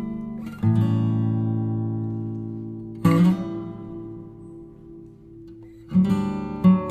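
Background music: a guitar strumming slow chords, each left to ring out and fade, with a new chord about every two and a half to three seconds and quicker strums near the end.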